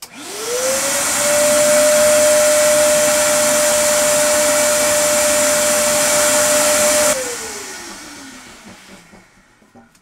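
Vacuum cleaner switched on, its motor whine rising to a steady pitch over a loud rushing hiss as it sucks lime sediment out of the bottom of an electric water heater tank through a tube. About seven seconds in it is switched off and winds down, the whine falling in pitch.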